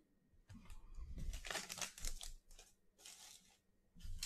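Plastic trading-card pack wrapper crinkling and tearing as it is handled and opened, in irregular rustles that are strongest in the first half.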